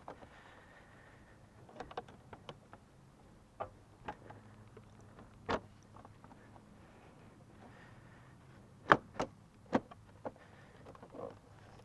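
A Suzuki Burgman 400 scooter's body panel being fitted back on by hand, with scattered clicks and knocks. The loudest come as three knocks close together between about 9 and 10 seconds in.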